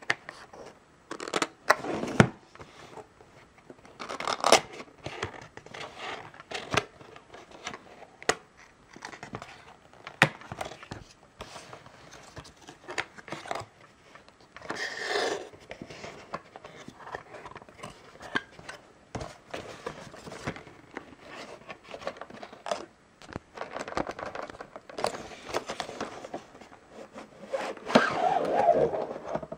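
Cardboard packaging being opened and handled: flaps and tabs scraping, rustling and clicking in an irregular run, with a longer stretch of sliding and rubbing near the end as a zippered carrying case is drawn out of the box.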